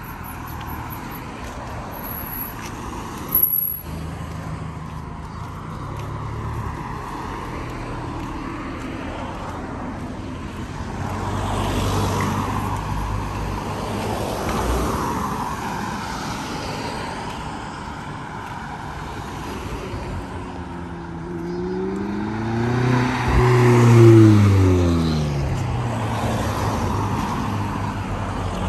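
Road traffic: motor vehicles driving past, with a steady tyre and engine rumble. The loudest vehicle goes by about two-thirds of the way through, its engine note rising and then dropping as it passes. A short sharp sound comes about three seconds in.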